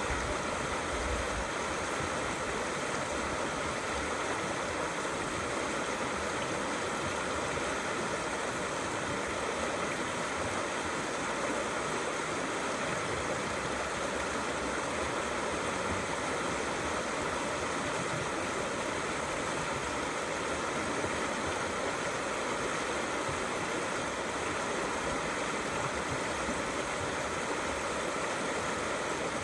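A small river flowing steadily over stones, in a continuous rushing and babbling that stays even throughout.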